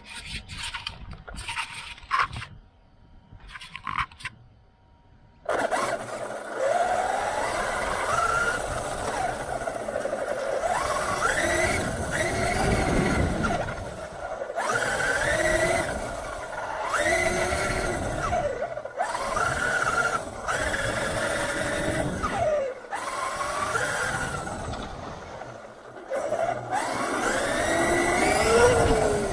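Traxxas Unlimited Desert Racer RC truck driving hard, heard from the camera strapped to it: its brushless electric motor and drivetrain whine up and down in pitch with each burst of throttle, over the rumble and rattle of tyres and chassis on the ground. The first five seconds are quieter, with a few clicks and knocks before the motor spins up.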